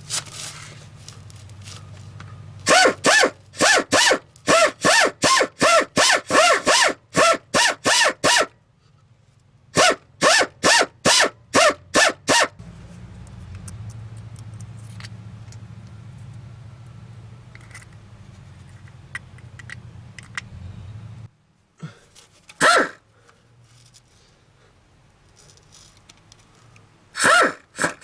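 A dog barking repeatedly, about two barks a second, in two runs, over a low steady hum that stops about three quarters of the way through.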